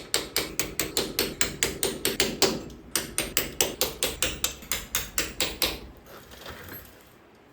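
Rapid, even run of sharp metallic clicks, about five a second, from hand-tool work on a truck's Coleman front axle assembly. The clicks stop about six seconds in.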